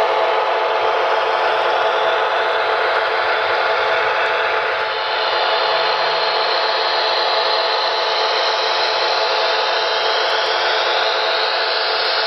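HO scale Broadway Limited GG1 electric locomotive model running on its track, its onboard sound system playing a steady electric-locomotive whir and hiss with a few steady humming tones.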